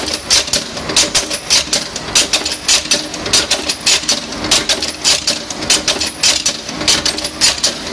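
Automatic blind rivet making machine (a cold-heading machine) running: a regular metallic clicking, about two to three sharp clicks a second, over a steady machine hum, as finished rivets clink into its collection tray.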